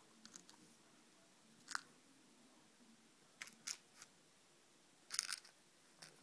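A cat biting and clawing at a toy mouse on upholstery: a handful of short, faint scratchy rustles, the loudest cluster a little past halfway.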